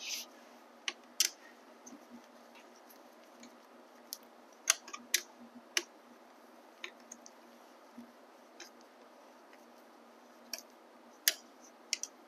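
Irregular sharp metallic clicks, about a dozen, of a 13 mm open-end wrench and an Allen key being fitted and turned on the mounting bolts and nuts of a Bafang M600 mid-drive motor as the bolts are tightened down.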